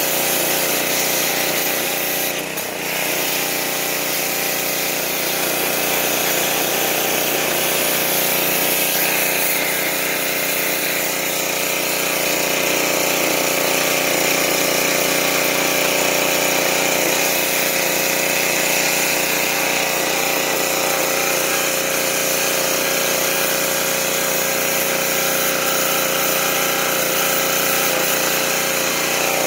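Gas engine of a Craftsman pressure washer running steadily under load, with the hiss of the high-pressure water jet blasting the plow's steel frame and coil springs. The sound dips briefly about two and a half seconds in.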